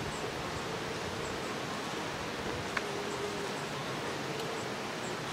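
Steady outdoor ambient noise with a faint on-and-off hum, and one faint click a little past the middle.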